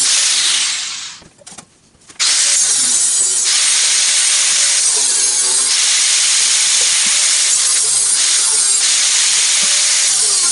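Angle grinder cutting into a stainless steel champagne cooler, played back at six times speed so the grinding comes out as a continuous high hiss. The noise dies away about a second in and cuts back in sharply at about two seconds, then runs on steadily.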